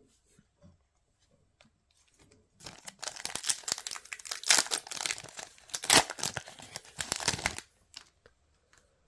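A trading-card booster pack wrapper being torn open and crinkled: a few faint handling ticks, then about five seconds of dense crackling and tearing that stops abruptly.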